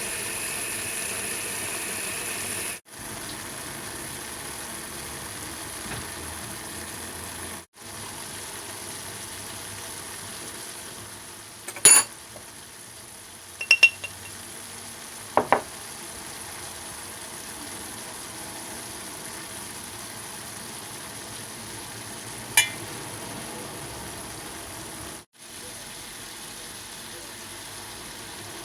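Food sizzling steadily as it fries in oil in a pan, with a metal utensil clinking sharply against the pan four or five times. The sizzle cuts out abruptly three times.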